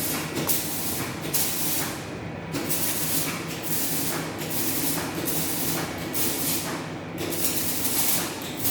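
Metal lathe running with a steady hum, while metal is worked on the turning axle tip with hissing scrapes that come and go about once a second.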